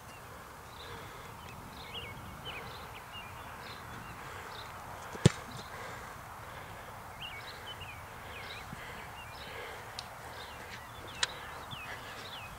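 A single sharp thud of a football being kicked off a kicking tee about five seconds in, with a lighter click near the end. Birds chirp over a steady outdoor background.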